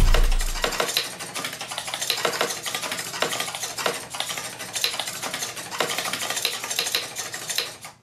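SG90 micro servo arms rapidly pressing a row of pushbuttons: a fast, irregular clatter of plastic clicks and taps, many presses a second.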